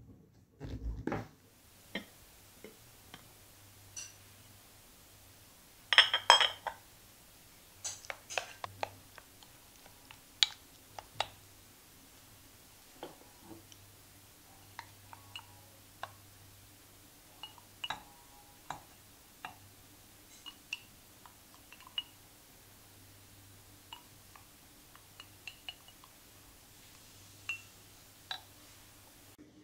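Glassware clinking, and a spoon tapping and scraping against a glass bowl while mashed strawberries are scooped into a glass mug. Scattered single clinks, with the loudest cluster of ringing clinks about six seconds in.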